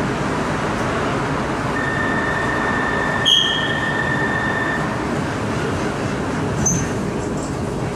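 Inside a Bangkok MRT Purple Line train car: a steady hum and rumble, with a high steady tone lasting about three seconds from about two seconds in, and a brief sharp squeak in the middle of it.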